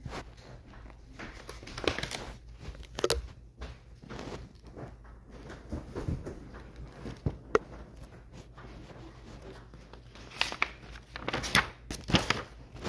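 Sheets of drawing paper rustling and crinkling as they are handled, with scattered clicks and knocks, busiest near the end.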